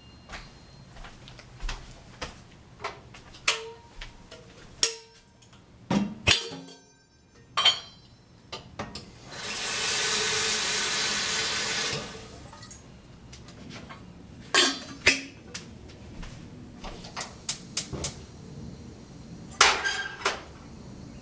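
Water from a kitchen tap running into a kettle for about three seconds near the middle, an even rush. Before and after it come scattered sharp clicks and knocks as the kettle and its lid are handled and set on the gas stove.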